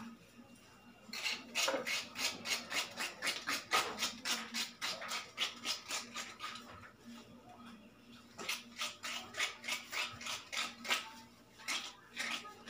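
Quick, rhythmic scraping strokes from hand food preparation at a cutting board, about four a second, in two bouts with a short pause between them.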